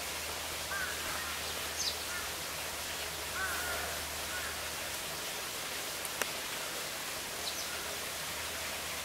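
Steady outdoor hiss with a few short bird calls scattered through it, and a single sharp click about six seconds in.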